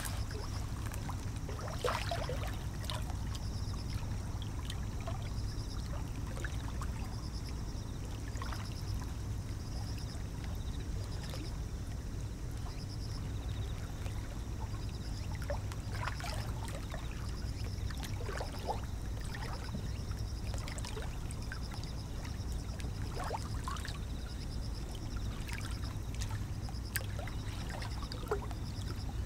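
Small waves of a lake lapping against a rocky shoreline: a steady low rumble with soft scattered splashes, and a faint high pulsing chirp underneath.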